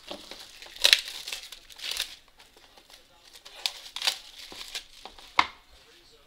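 Plastic shrink wrap being torn and crumpled off a sealed box of hockey cards. It comes in several bursts of crackling, with one sharp, louder crackle about five seconds in.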